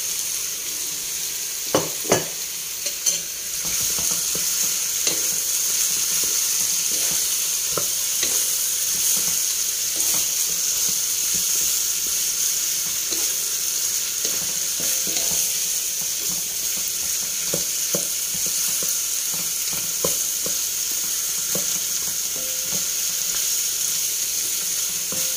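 Pork ribs and sliced onions sizzling in hot oil in a wok, with a wooden spatula scraping and knocking against the pan as they are stirred. The sizzle gets louder a few seconds in.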